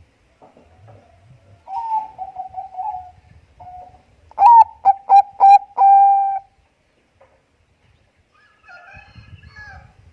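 Zebra dove (Bangkok perkutut) cooing: a soft rolling trill, then a loud run of four quick staccato coos ending in a longer held coo. A fainter, higher chattering call follows near the end.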